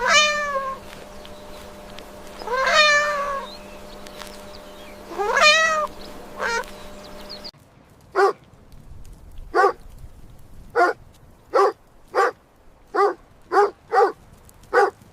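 A cat meowing: three long meows that rise then fall in pitch, then a quick run of about ten short mews, roughly one a second.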